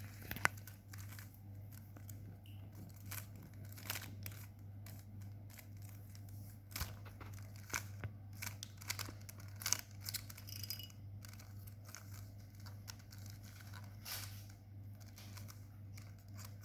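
Plastic Rubik's Cube being twisted by hand: irregular clicks and short rasps of its layers turning, over a steady low hum.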